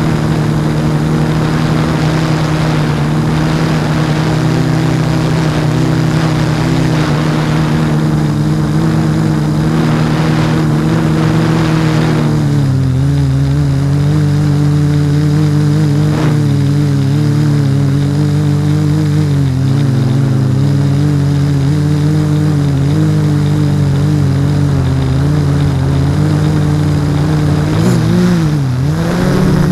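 Six LD-Power MT3110 brushless motors with 10x4.5 propellers on an F550 hexacopter humming steadily in flight, heard from a camera mounted on the frame. The pitch drops about twelve seconds in, and near the end it dips sharply and rises again as the craft tilts and the throttle changes.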